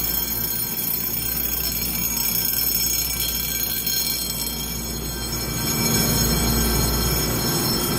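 Taiwan Railway EMU3000 electric express train pulling out: steady high-pitched tones over a low rumble, which grows louder about six seconds in as the train gathers speed.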